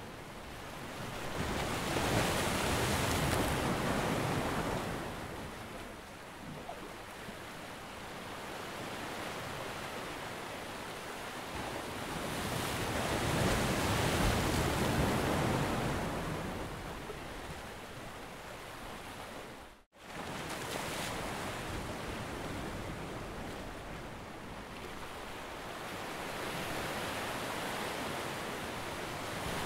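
Gusty wind on the microphone over small waves lapping against a rock wall, swelling and easing every several seconds. The sound cuts out for an instant about two-thirds of the way through.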